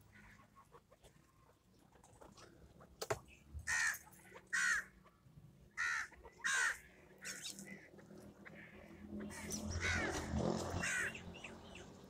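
Chukar partridges calling: short calls, mostly in pairs, every couple of seconds, with a single sharp click about three seconds in.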